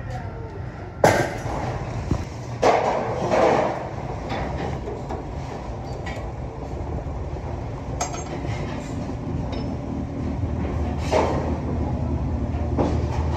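Metal knocks and clatter, with a sharp knock about a second in and more clatter shortly after, then lighter metallic clicks and taps as a bit is fitted into a bench drill press chuck. A low hum runs underneath and grows stronger near the end as the drill press motor starts.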